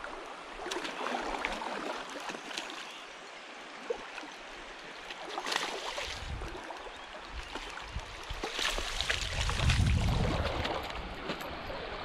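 Creek water running and trickling over rocks, swelling and easing in loudness several times, loudest about nine to ten seconds in.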